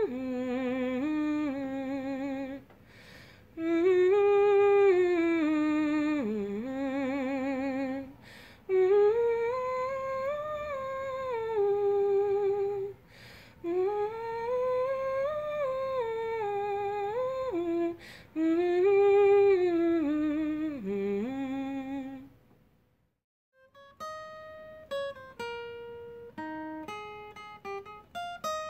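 A single voice humming a slow melody with vibrato, in several long phrases with short breaks between them. It stops about three-quarters of the way through, and after a short silence single plucked string notes sound one at a time, each ringing and fading.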